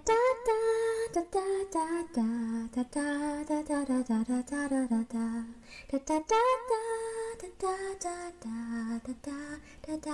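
Intro theme music: a woman's voice singing a slow melody with held, gliding notes, broken by a few sharp clicks.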